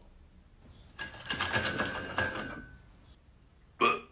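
Rustling and scraping as a plush llama toy is pushed across a wooden parquet floor, starting about a second in and lasting about a second and a half. A brief sharp burst follows near the end.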